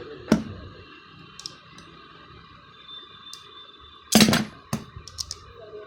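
Tools and metal parts being handled during a motorcycle starter-motor repair: a sharp click, then a louder clatter about four seconds in, followed by a few lighter clicks.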